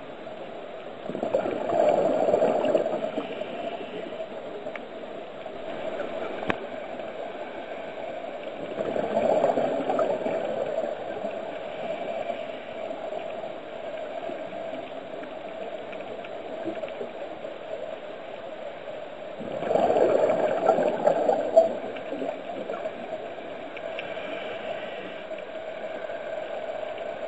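Underwater recording of a scuba diver's exhaled bubbles gurgling out of the regulator in three surges, roughly every nine to ten seconds, over a steady hum.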